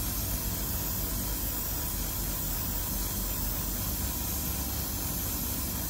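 Gravity-feed airbrush spraying primer, a steady hiss of air and paint mist.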